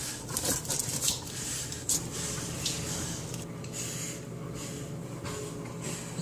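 Two yellow Labrador retrievers play-wrestling on a cushioned dog bed: scuffling and rustling of bodies against the bedding, with irregular soft clicks and knocks of mouthing, busiest in the first two seconds.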